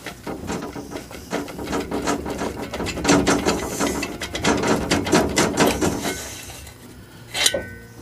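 Hand ratchet clicking rapidly in bursts as nuts are run off the cylinder head of a VW 1200 air-cooled engine. A single sharp metallic clank with a brief ring comes near the end.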